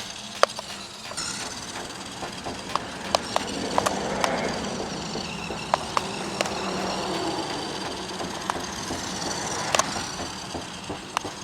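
Small electric motor and gearbox of a BEZGAR TD141 RC crawler whining as it drives, the pitch rising and falling, with scattered sharp clicks and knocks from the wheels and body on the ground.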